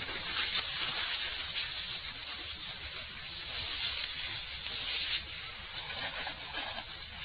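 Steady hiss of a noisy recording, flickering in level, over a low hum, with no clear words.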